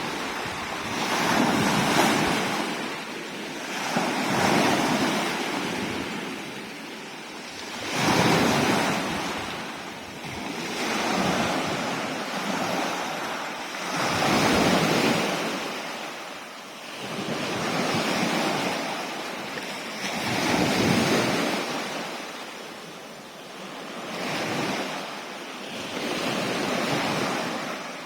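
Sea waves breaking and washing in, surging and ebbing with a new swell every two to four seconds.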